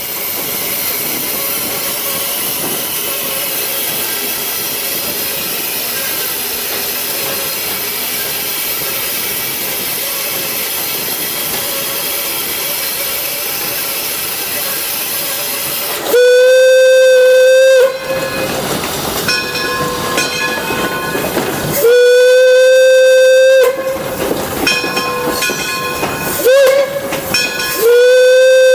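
An 1897 Baldwin steam locomotive's cab filled with steady loud steam hiss, then the steam whistle blowing long, long, short, long, the grade-crossing signal. The whistle is one steady pitch with strong overtones, and each blast drowns out the hiss.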